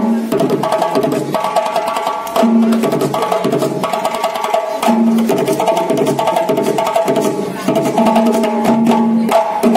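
Music with a fast percussion beat of sharp clicks over steady, repeating held tones.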